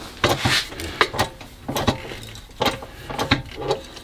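Shop press being worked up under load, its mechanism giving about six sharp clacks at an uneven pace, roughly one stroke every second or less, as it builds pressure on a 3D-printed die pressing into 20-gauge steel sheet.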